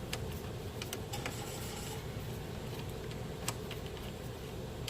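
A socket wrench working loose one of the 13 mm top bolts that hold a Nissan Sentra's front strut, giving a few scattered metal clicks over a steady low background hum.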